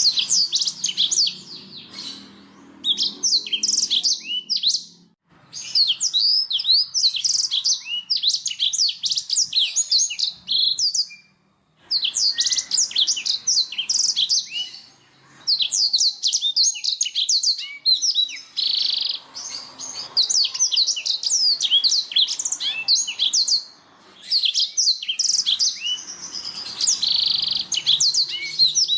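Domestic canary singing: long phrases of fast, high chirps and rolling trills, broken by short pauses every few seconds.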